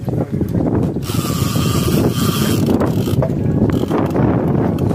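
Fishing reel being cranked to reel in a hooked fish, its gears and ratchet clicking, over the steady rumble of the boat's engine and the wind.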